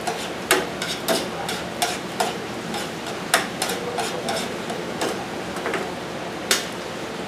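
Metal spoon stirring tomato sauce in a frying pan, with irregular clicks and scrapes against the pan, a few a second, over a steady hiss.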